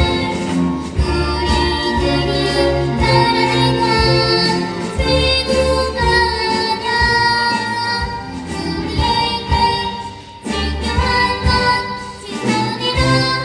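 Children's choir singing a song with instrumental accompaniment over a steady beat, with a brief lull about ten seconds in.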